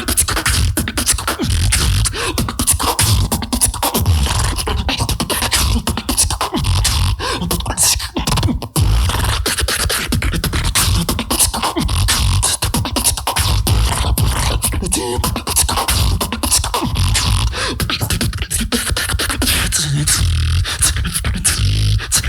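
A solo beatboxer performing a battle routine: deep bass kicks under rapid, crisp snare and hi-hat-like mouth percussion, with a brief break about nine seconds in.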